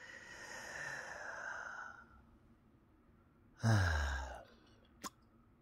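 A man sighs twice: a long breathy exhale lasting about two seconds, then, after a pause, a louder, shorter voiced sigh that falls in pitch. A faint click follows near the end.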